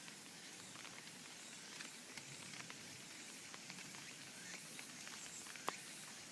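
Faint steady hiss of rain falling, with scattered small drops pattering and one sharper tick nearer the end.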